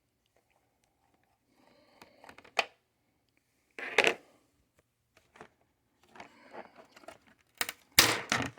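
Plastic bottom cover of an MSI GS60 laptop being forced off: scattered clicks and crackles of its clips, with the loudest snaps near the end as it comes free.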